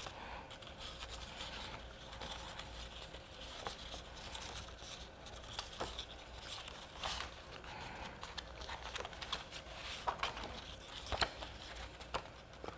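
Faint rustling and small crisp clicks of cardstock papercraft pieces being handled and folded along their crease lines by hand.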